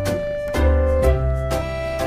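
Background music: sustained bass notes and a melody over a regular beat about twice a second.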